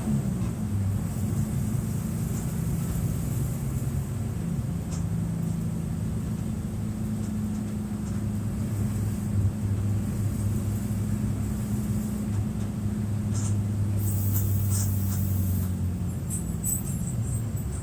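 Mercedes-Benz OF-1723 bus's OM906LA six-cylinder turbo diesel running with a steady low drone, its pitch shifting only a little. A few light clicks and rattles come near the end.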